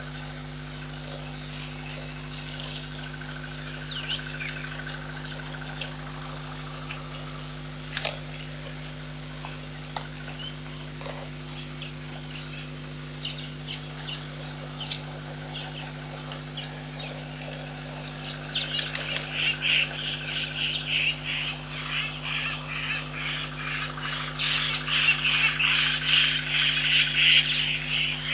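Animal calls: scattered short chirps at first, building from about two-thirds of the way in into a loud, rapid chatter, over a steady low hum.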